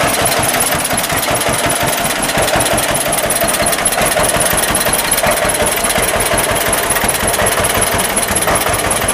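1949 John Deere BW tractor's two-cylinder engine idling steadily with its even popping beat.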